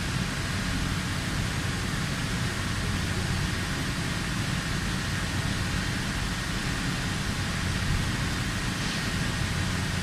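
WFL M60 MillTurn machine tool running during crankshaft machining: a steady low hum under an even hiss, with a faint high whine and no breaks or impacts.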